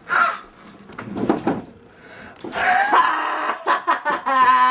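A boy's voice making short non-word vocal sounds, grunts and gasps, ending in a long held cry near the end.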